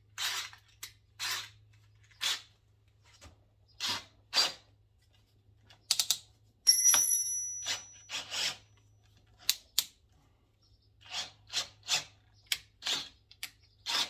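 Short rasping metal scrapes, roughly one a second, as a thread-cutting tap is worked into holes in metal. A single sharp, ringing metal clink comes about seven seconds in, over a faint steady hum.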